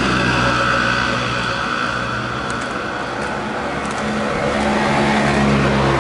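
A motor vehicle's engine running close by over steady road noise, its pitch shifting about four seconds in.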